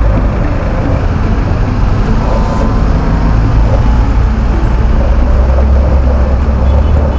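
Traffic noise heard from a moving motorcycle: a steady low rumble of the motorcycle's engine and wind on the microphone, among the noise of other vehicles on the street.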